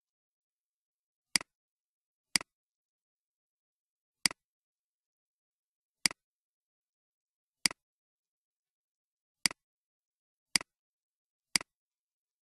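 Computer mouse button clicking: eight separate sharp clicks, one to two seconds apart, with silence between.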